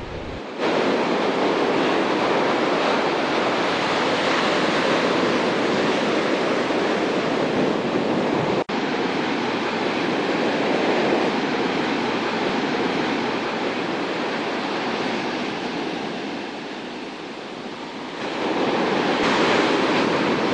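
Ocean surf breaking and washing up a beach, a steady rush. It cuts out very briefly about eight or nine seconds in, eases off a little later on, then swells louder again near the end.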